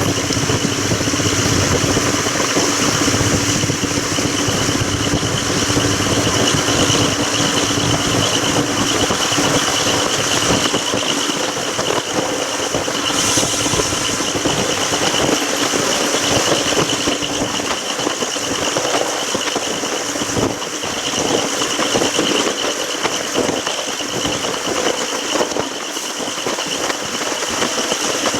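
Railway train running: a steady rattle from the running gear with a high, steady squealing whine over it.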